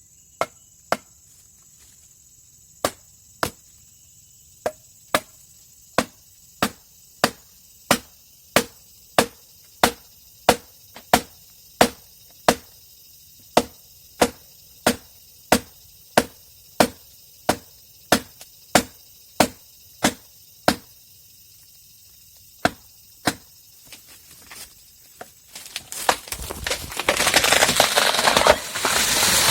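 Steady series of sharp blows of a tool striking wood, about one and a half a second, that stop about three-quarters of the way through. A few seconds later comes a loud, rushing crash of breaking and swishing branches, typical of the felled tree coming down.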